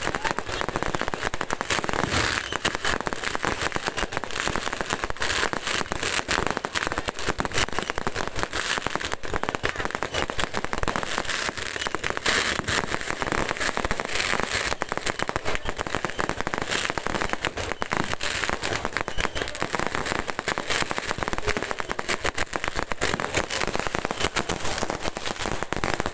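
Fireworks going off in a dense, continuous barrage of rapid crackling pops.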